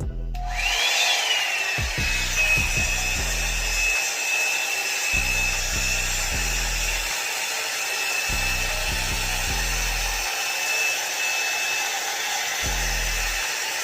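Revlon One-Step hair dryer brush switched on at its low setting. About half a second in, its motor spins up with a brief rising whine and settles into a steady whine over the hiss of blowing air.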